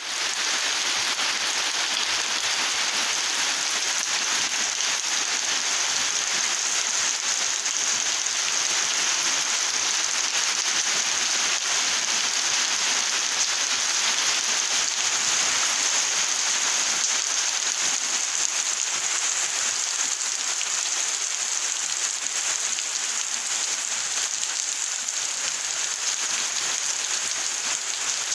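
Steady, even rain falling, a continuous hiss of many drops.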